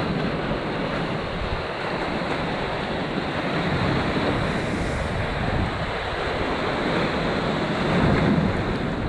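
Ocean surf breaking and washing over a rocky shore, a steady rushing, with wind buffeting the microphone. The surge swells a little about eight seconds in.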